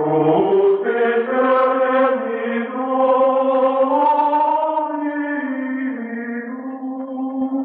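Chanted vocal music: long held, sung notes that step to a new pitch a few times.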